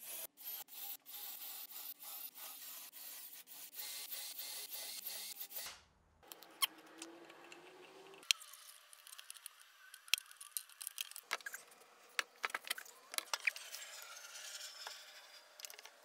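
Cordless drill boring into a veneered plywood panel through a drill guide block, running for about six seconds and then stopping. After that come light scrapes and sharp clicks of wood being handled.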